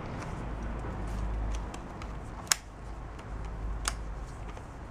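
Small items being handled and rummaged through in a box, with two sharp clicks about two and a half and four seconds in and a few fainter ticks.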